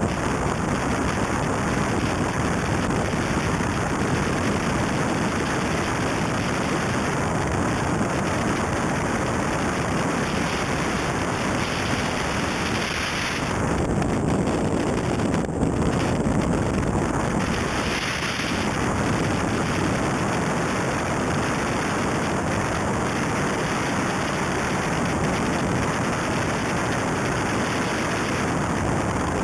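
Mitsubishi Lancer Evo III rally car driving fast on gravel: its turbocharged four-cylinder engine running under a steady rush of wind and gravel noise on the car-mounted camera's microphone.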